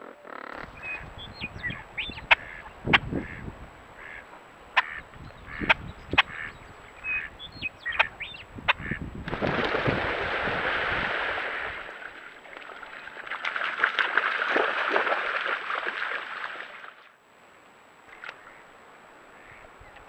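A group of ducks on a shallow pond quacking, with short sharp calls and splashes, then two long loud rushes of splashing water and beating wings as they flap up off the water, the first about nine seconds in and the second about thirteen seconds in.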